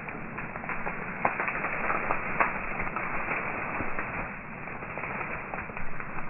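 Dense, leafy field plants rustling and crackling as they are pushed through on foot: a steady rustle with many small snaps and clicks.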